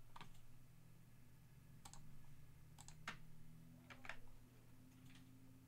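Faint computer mouse and keyboard clicks, about half a dozen scattered single clicks, over a low steady hum.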